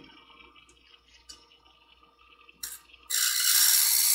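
A medical shear blade drawn across the spinning diamond wheel of a Twice as Sharp scissor sharpener, a light pass to take off the burr. After a few small ticks comes a short scrape about two and a half seconds in, then a loud hissing grind lasting over a second near the end.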